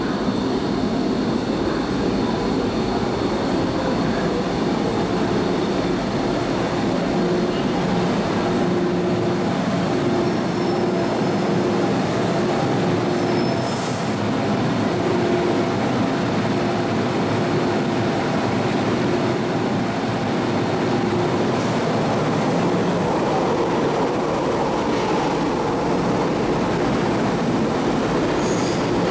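MTR Metro Cammell electric multiple-unit train running through a station platform, its wheels and motors making a continuous rumble with some wheel squeal. Through the middle part a steady tone switches on and off about once a second.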